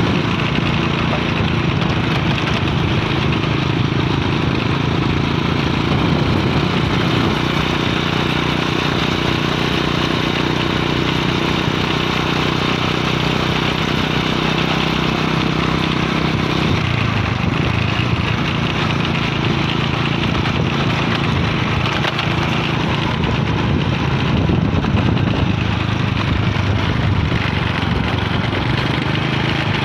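Small motorcycle engine running steadily while riding, its note shifting about halfway through.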